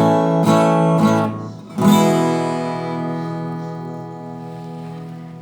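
Acoustic guitar strumming a few chords, then a final strummed chord about two seconds in that rings out and slowly fades: the song's closing chord.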